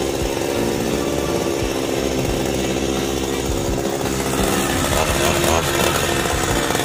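Stihl two-stroke chainsaw running steadily at idle, its engine note holding a constant pitch.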